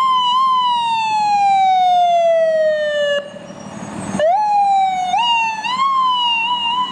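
Ambulance siren wailing: one tone slides slowly down, cuts off about three seconds in, and after a second of hiss starts again, climbing back up in steps.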